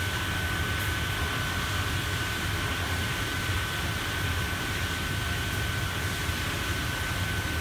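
Steady drone of a commercial kitchen's extraction hood and cooking line running, with a low rumble and a constant high whine.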